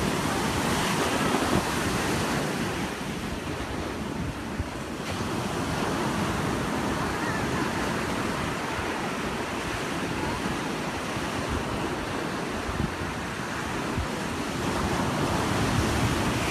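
Ocean surf breaking and washing up the beach, a steady rushing that eases a few seconds in and builds again near the end, with wind rumbling on the microphone.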